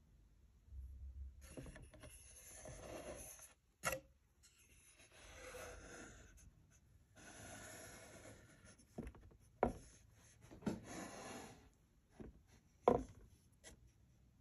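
Faint handling noise: several stretches of rubbing and scraping, with a few short sharp knocks, as the statue's base is turned by hand on the tabletop.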